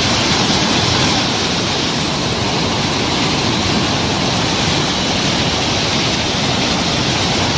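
Floodwater discharging through a concrete dam's spillway: a steady, loud rush of water.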